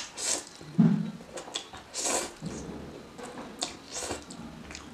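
A person slurping spicy soup noodles off chopsticks and chewing, in several short separate bursts.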